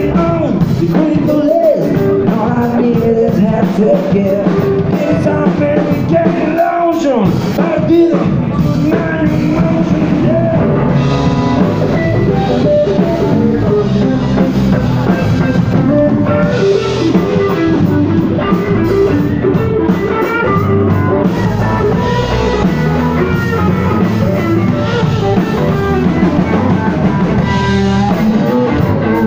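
Live rock band playing loud: electric guitar, bass guitar and drum kit, with singing.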